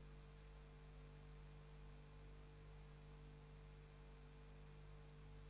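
Near silence on a broadcast line, with only a faint steady hum.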